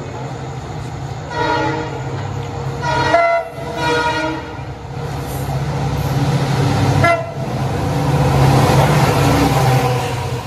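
WDP4D diesel locomotive approaching and sounding its horn in several blasts over a growing engine rumble. About seven seconds in, the locomotive and its coaches pass close by with a loud, rushing noise.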